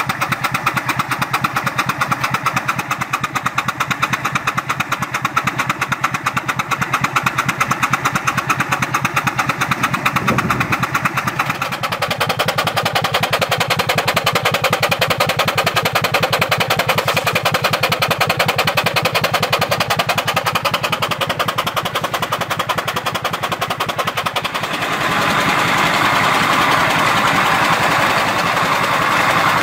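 English Iron Works 5x6 steam engine running under load with a fast, even beat, belt-driving a McCormick-Deering 10-inch Type D feed grinder as it grinds corn into coarse meal. The grinder's milling noise comes up louder over the last few seconds.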